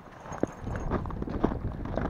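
Footsteps crunching in snow, several steps a few tenths of a second apart, with a sharper crunch about half a second in.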